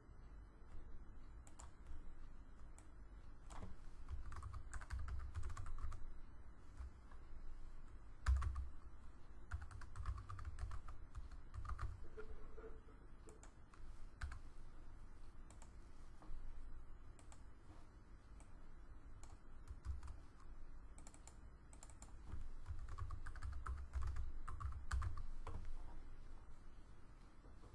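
Typing on a computer keyboard in several short bursts of key clicks, with pauses between.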